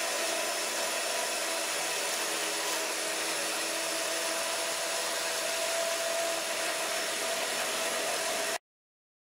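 Homemade electric chainsaw mill, a 5 hp single-phase electric motor driving a 36-inch bar with .404 chain, running steadily while ripping through a log, with a steady motor whine over the cutting noise. It stops abruptly near the end.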